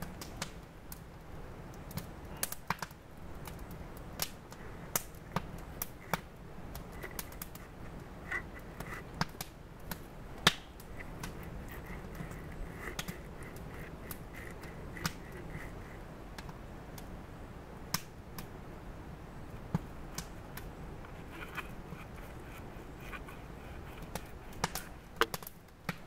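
Irregular light knocks, taps and clicks of hands handling hollow bull kelp floats and a wooden stick on split firewood, the stick being threaded through holes cut in the floats.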